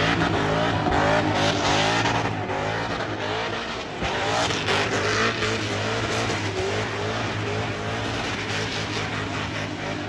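Burnout car's engine revving hard, its pitch wavering up and down, with the rear tyres spinning and squealing against the track surface.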